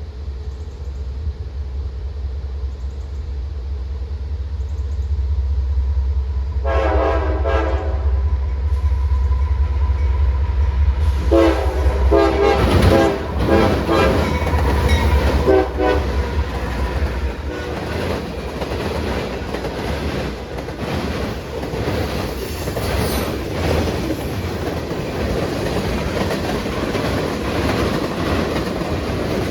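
A train passing close by: a diesel locomotive's deep engine rumble builds, its horn sounds one blast about seven seconds in, then a series of blasts from about eleven to sixteen seconds in. The rumble then falls away and the cars roll by with a steady clickety-clack of wheels over the rail joints.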